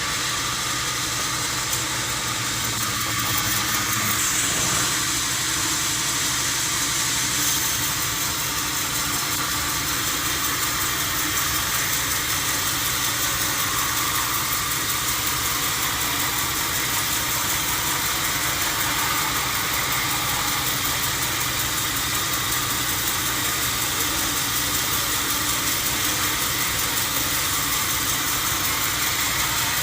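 Sawmill machinery running steadily: an even, continuous mechanical noise with a faint hum and no breaks.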